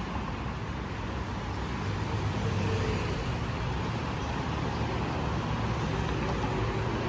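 Steady road traffic: cars and motorcycles driving past on a multi-lane road, a constant rumble of engines and tyres.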